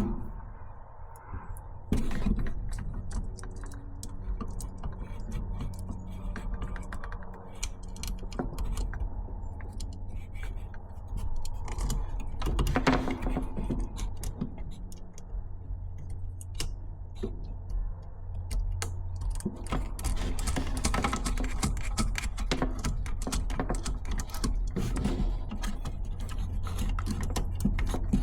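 Small metal hardware being handled by hand: light clicks and clinks of nuts, bolts and magnets going onto a light's mounting bracket, over a steady low hum.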